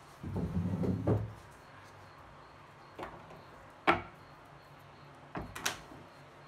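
Handling noise of soldering tools on a hard tabletop: a short low rustle at first, then a few separate light clicks and knocks, the sharpest a little after the middle as the soldering iron is set down.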